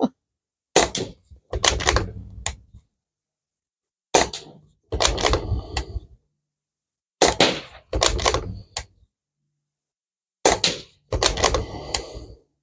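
Air rifle shooting at a row of exploding reactive targets: four rounds about three seconds apart, each a short sharp crack followed within a second by a longer cluster of bangs.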